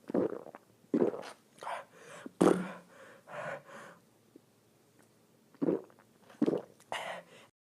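A person belching: a series of short burps, one held a little longer with a low steady pitch, cutting off abruptly near the end.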